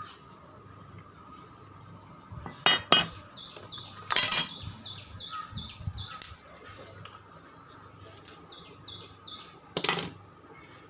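A few sharp clinks and knocks of hard objects being handled, the loudest about four seconds in and another near the end, while a small bird chirps in quick runs of short notes.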